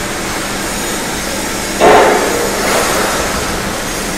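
Steady machinery noise of a steel fabrication workshop, broken about two seconds in by a sudden loud metal clang that rings briefly and fades.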